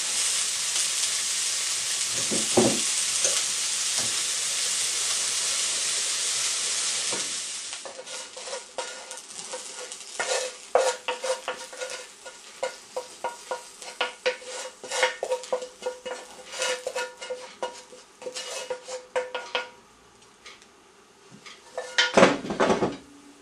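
Chopped onion and pheasant sizzling in hot olive oil in a frying pan, stirred with a wooden spatula, for about seven seconds. Then the sizzle dies away and a rapid run of ringing taps and scrapes follows as the spatula scrapes the food out of the pan onto a plate, with a louder clatter near the end.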